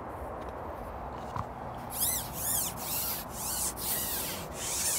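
Long carbon fishing pole being shipped out, its length sliding through the hands and over the kit with a run of rubbing swishes from about two seconds in.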